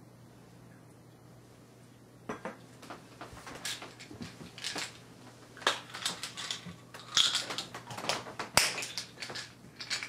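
Tableware being handled: a run of light clinks, taps and rustles that starts about two seconds in and gets busiest toward the end, over a faint steady hum.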